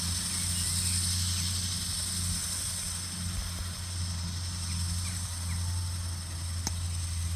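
Case MXU 130 tractor engine running steadily under load, pulling a fertiliser spreader, heard as a continuous low hum. A steady high hiss runs over it.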